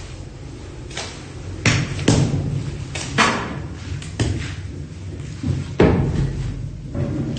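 A series of heavy thumps and knocks at uneven intervals, about six strikes, over a steady low hum.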